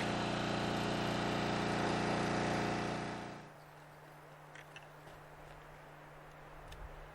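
A steady engine-like hum that dies away about three seconds in, leaving a faint low hum and a few small clicks.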